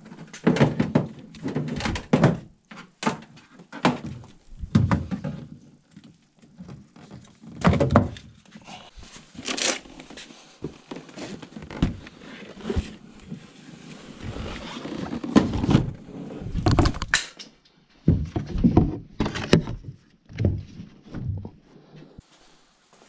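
Fishing gear being handled: a white plastic crate and kayak equipment bumped and shifted, giving irregular knocks and thumps with scraping and rustling between.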